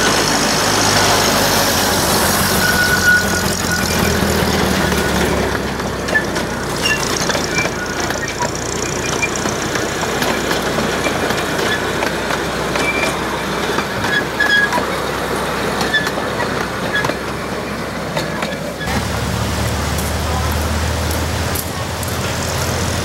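Ride-on 15-inch-gauge locomotive running past with its engine droning, pulling its cars, and the steel wheels clicking on the track. The engine's low drone grows stronger near the end.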